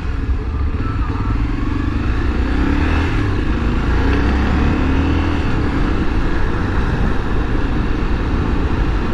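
Honda XRE300's single-cylinder engine running steadily at low speed while the motorcycle filters slowly between lines of traffic.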